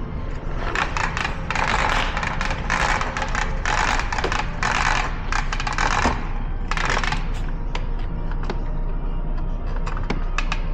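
Crackling and clicking in dense bursts, as of old wiring-harness tape being peeled off after heating. The crackling is strongest for the first six seconds or so, comes again briefly around seven seconds, and thins to scattered clicks near the end, all over a steady low hum.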